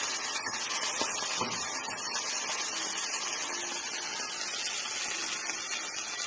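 A steady hiss with no clear rhythm or tone.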